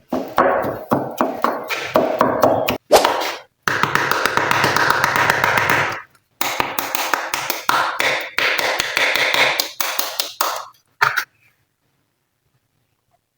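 Glossy slime being squished and worked by hand: dense runs of small sticky pops and clicks in bursts of a second or two, stopping about eleven seconds in.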